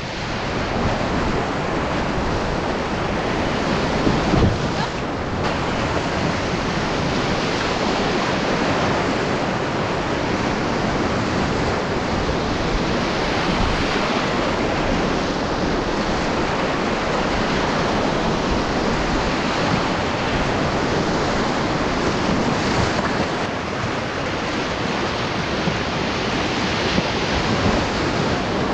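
Rushing whitewater of a mountain river rapid, a steady loud wash of water heard from an open canoe running through it, briefly louder about four seconds in.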